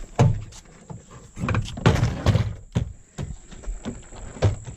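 Knocks and thuds from hands and tools working on a car door as parts are taken off it.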